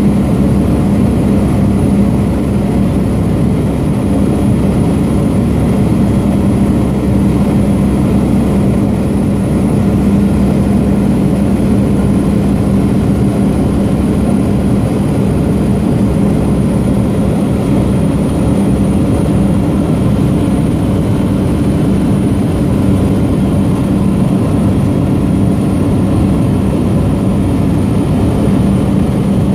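A single-engine floatplane's engine and propeller at climb power, heard from inside the cabin as a steady, loud drone with a strong low hum.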